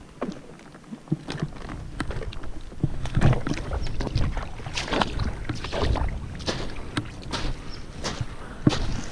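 Footsteps wading through shallow water, with irregular splashes, then stepping out onto a muddy bank near the end.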